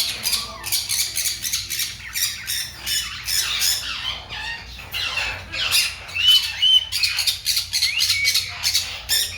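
Many caged pet birds squawking and chirping in rapid short calls, with a couple of arched whistled notes about two-thirds of the way through.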